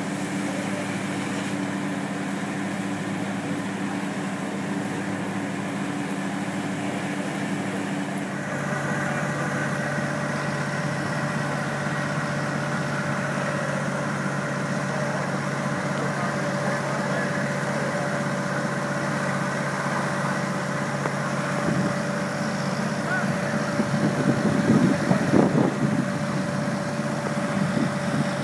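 Fire trucks' diesel engines running steadily while driving their water pumps, a constant drone of several held tones whose pitch shifts about eight seconds in. A brief louder, irregular stretch comes near the end.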